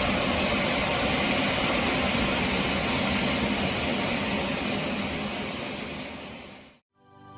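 Steady jet engine noise from the Airbus A350, fading out near the end.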